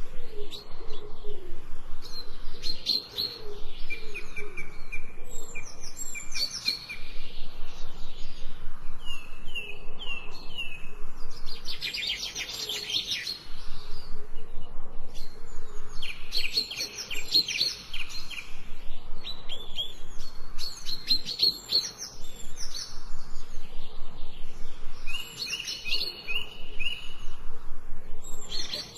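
Birds chirping and singing: clusters of quick, high, repeated notes and trills, with brief pauses between phrases.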